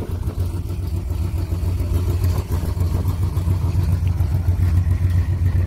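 A 1971 Oldsmobile Cutlass Supreme's V8 idling with a steady low rumble.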